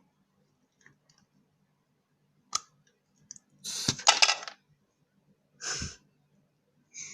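Slime being squeezed and handled, giving short crackling, popping bursts: a sharp click about two and a half seconds in, a louder crackling stretch of about a second in the middle, and shorter bursts near the end.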